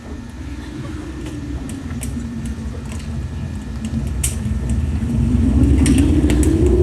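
Fire sound effect: a low rumble of flames that gradually grows louder, with scattered sharp crackles.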